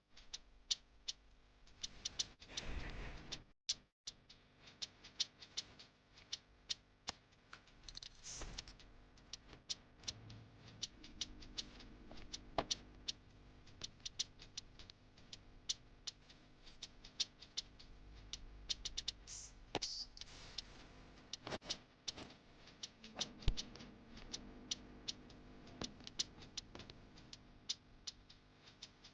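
Irregular light clicks and taps, sometimes several in quick succession, from hands working with small tools, wires and plastic parts.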